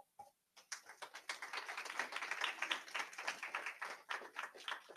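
Audience applauding: a dense patter of hand claps that starts about half a second in, swells, and thins out near the end.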